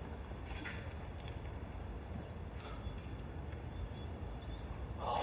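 Quiet background ambience: a low steady rumble with a few faint, brief high-pitched chirps scattered through it.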